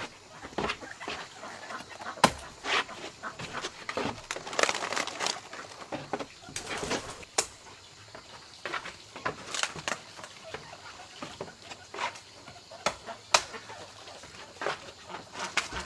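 Hens clucking and flapping their wings, with sharp knocks now and then.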